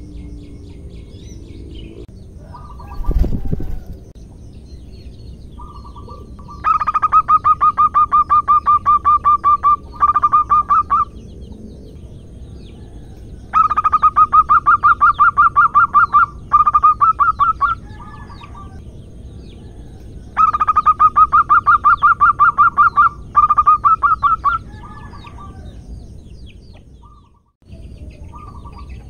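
Zebra dove (perkutut) calling in three bouts of rapid staccato cooing. Each bout is a run of many short pulsed coos lasting about three seconds, then a shorter run, which the uploader presents as a female calling a male to mate. A brief thump about three seconds in, over steady low background noise.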